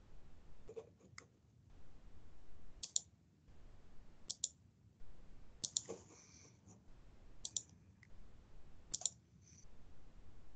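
Faint computer mouse clicks, each a quick double tick, coming about every one and a half seconds.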